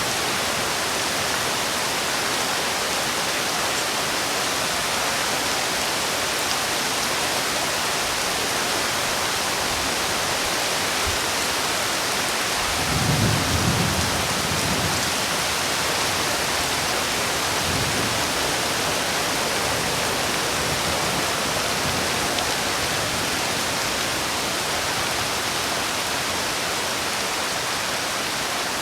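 Heavy rain falling steadily, with a brief low rumble of thunder about halfway through.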